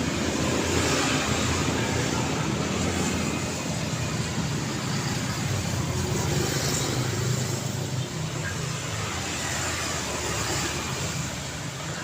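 Road traffic: a continuous stream of passing cars, engine and tyre noise swelling and easing as vehicles go by.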